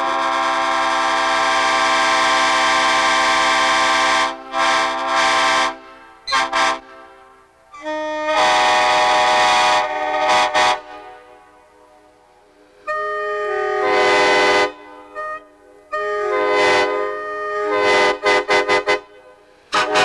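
Nathan Airchime five-chime train horns on a pickup truck sounding a series of loud chord blasts: a long blast of about four seconds, a few short toots, longer blasts of two to three seconds, then a quick run of short toots near the end. The chord differs from blast to blast.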